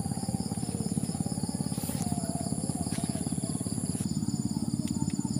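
A small engine running steadily with a fast, even chugging, under the steady high-pitched trilling of insects.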